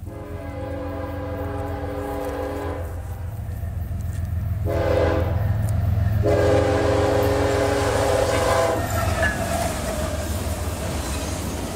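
Diesel freight locomotive's multi-chime air horn sounding a crossing warning: a long blast, a short one, then another long one, each a chord of several tones. Under the horn the locomotive's low engine rumble grows louder as it approaches. After the last blast, the rolling noise of the passing freight cars takes over.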